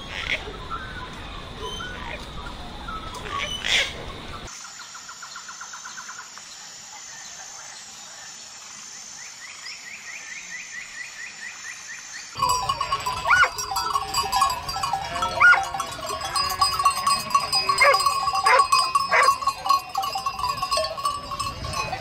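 A large flock of sheep bleating, many calls overlapping, starting a little past halfway and the loudest part. Before that there is quieter background noise, then a steady high hum with a couple of rapid trills.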